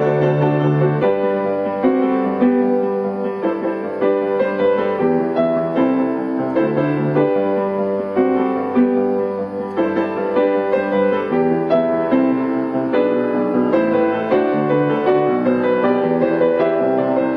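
Background music: a keyboard tune with a moving melody over held bass notes.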